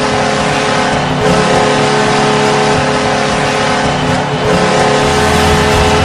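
Buffalo Sabres hockey arena goal horn blasting in long steady blasts over a loud rushing noise, with short breaks about a second and about four seconds in. Music with a heavy bass comes in near the end.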